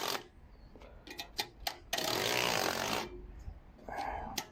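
Shogun sharpener drawn slowly along the teeth of a blunt wood handsaw, scraping in strokes about a second long: one ending just at the start, a full stroke about two seconds in, and a shorter, fainter one near the end, with a few light clicks in between.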